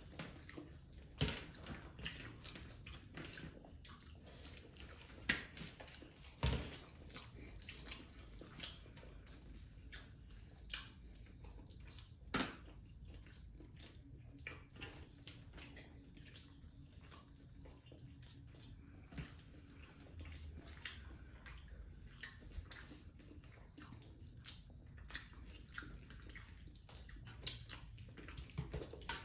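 Quiet, irregular wet squelching of rice being mashed into fish curry by hand, with chewing and scattered sharp clicks, the loudest about five and twelve seconds in.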